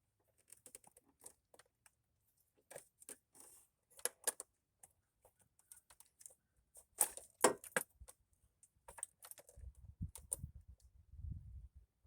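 Irregular light clicks and taps of small hard objects being handled, with a cluster of louder clicks about seven seconds in and a low rumble near the end.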